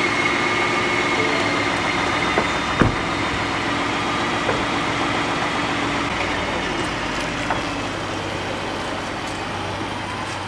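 Truck engine running steadily just after being started, slowly easing off, with a single knock about three seconds in.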